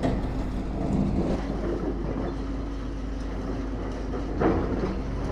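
Steady engine rumble of demolition machinery, with a level hum, and a brief louder noise about four and a half seconds in.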